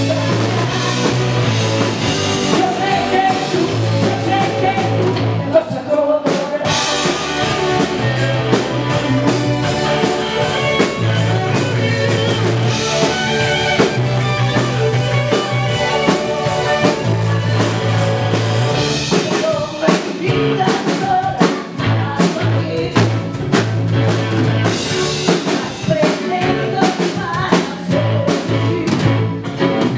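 Rock band playing live: a woman singing over electric guitar, electric bass and a drum kit, the bass holding long low notes.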